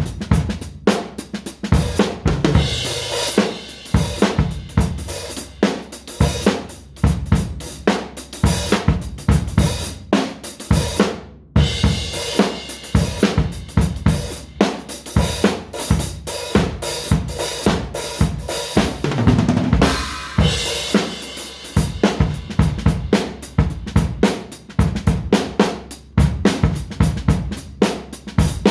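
Acoustic drum kit played freely and busily: fast, irregular snare and bass drum strikes with hi-hat and cymbal crashes, broken by a momentary pause about eleven and a half seconds in.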